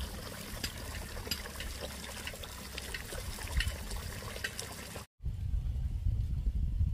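Water pouring steadily from a pipe into a full basin, splashing and trickling. It cuts off abruptly about five seconds in, and a low rumble follows.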